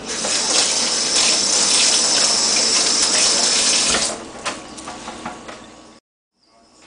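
Kitchen tap running hard, water splashing into the sink, stopping about four seconds in.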